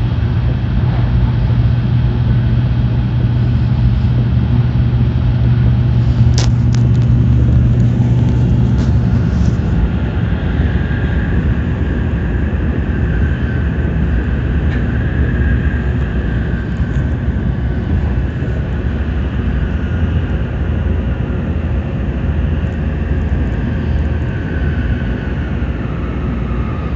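Shinkansen train running, heard from inside the car: a steady rumble and roar of wheels and air. About nine and a half seconds in, a low hum drops away and a fainter whine wavers in pitch, with a single sharp click about six seconds in.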